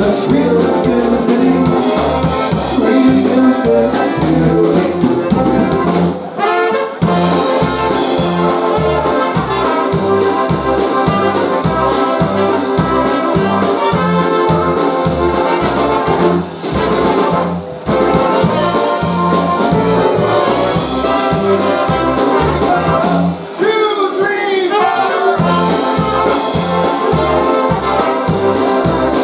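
Live polka band playing an instrumental stretch, brass carrying the tune over a steady oom-pah bass beat of about two per second, with a few brief drops in the music.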